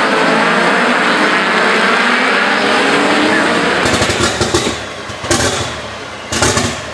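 Racing engines running hard on the circuit as a steady loud noise. About four seconds in it gives way to a rough, rapid crackle of an engine close by, in short sharp pulses that rise and fall in level.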